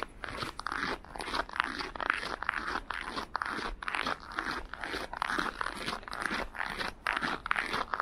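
Footsteps crunching on packed snow at about minus 17 °C, at a steady walking pace of about two steps a second.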